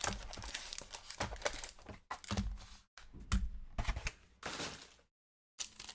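Trading card packaging being handled and opened: cardboard and plastic wrapper crinkling, with scattered knocks and taps. The sound cuts out completely for about half a second near the end.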